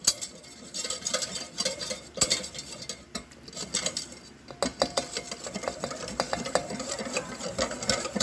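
A utensil stirring batter in a bowl, tapping and clinking irregularly against the bowl: flour being mixed into sweetened water for kutsinta batter.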